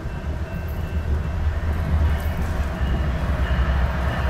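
Deep diesel rumble of approaching BNSF GE locomotives, growing steadily louder as the train draws near.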